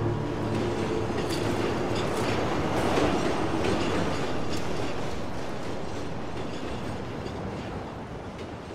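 Elevated train passing on its tracks: a rush of running noise with irregular clicks from the wheels. It swells to its loudest about three seconds in, then slowly fades away.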